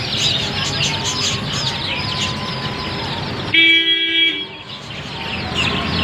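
A crowd of young chicks peeping constantly, many high cheeps at once. About three and a half seconds in, a vehicle horn sounds once, loud and steady for under a second. The peeping thins out briefly just after it.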